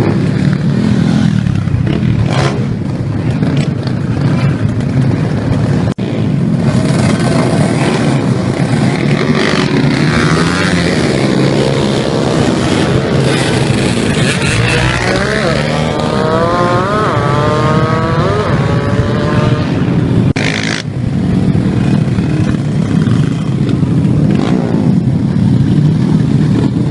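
Several motorcycle engines running and revving together, their notes rising and falling as bikes rev and pass, most clearly through the middle. A brief loud burst of noise comes about twenty seconds in.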